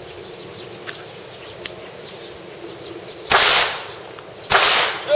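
Two pistol shots about a second apart, a double tap, each dying away over about half a second. Faint birdsong continues underneath.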